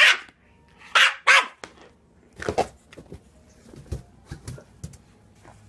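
Dog barking in short, separate barks, three in quick succession in the first second and a half and another about two and a half seconds in, then fainter sounds.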